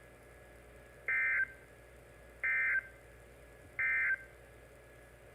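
Emergency Alert System end-of-message signal: three short bursts of SAME digital data tones, each about a third of a second long and about a second apart, marking the end of the alert message.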